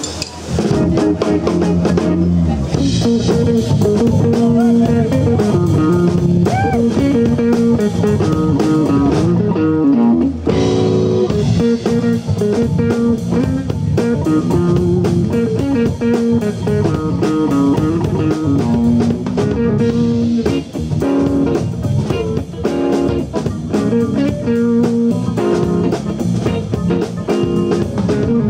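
Jazz-funk band playing live: an electric guitar riff over electric bass, keyboard and drum kit, kicking in about half a second in.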